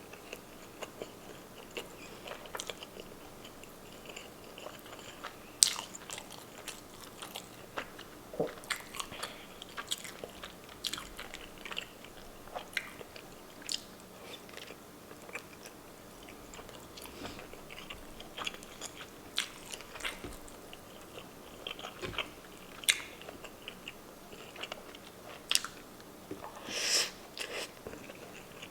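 Close-miked eating sounds: a person chewing and biting food, with irregular wet mouth clicks and smacks and a few louder crunches.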